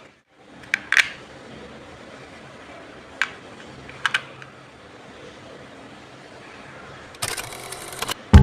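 A few sharp clicks, two of them in quick pairs, over a faint steady hiss, then a brief rattling clatter of rapid clicks near the end.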